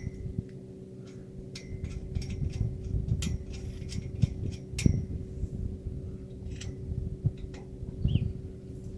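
Metal frame pipes of a shelter cover clicking and clinking as a crossbar is worked and slid into its fitting on the arch: scattered light metal clicks, with a sharper knock about five seconds in, over a faint steady hum.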